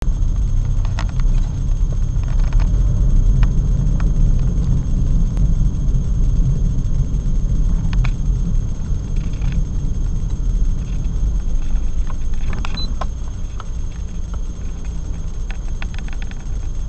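Low, steady rumble of a car waiting in traffic, heard from inside the cabin through a dashcam microphone, with a few scattered clicks and a faint steady high-pitched whine.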